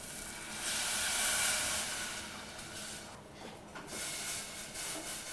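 White wine poured into a hot saucepan of shallots frying in butter: a sharp hiss and sizzle as the wine hits the fat, loudest in the first couple of seconds, then settling down as the liquid starts to simmer.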